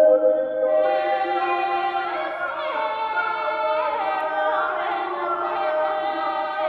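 Several recorded singing voices hold long, overlapping notes like a small a cappella choir. The notes shift every second or two. They play from the wooden speaker boxes of an interactive sound sculpture.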